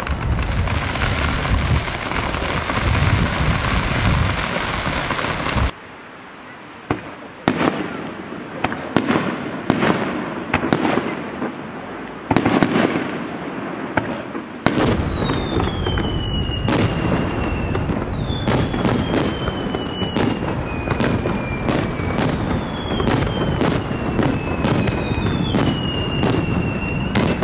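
Fireworks display: a dense hissing rush for the first several seconds, then many sharp bangs of shells bursting. From about halfway on, several falling whistles sound among the bangs.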